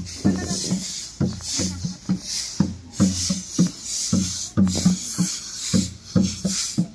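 Dholak, a hand-played two-headed barrel drum, beaten in a rhythm of about three strokes a second, over the swish of stiff grass brooms sweeping a dusty path.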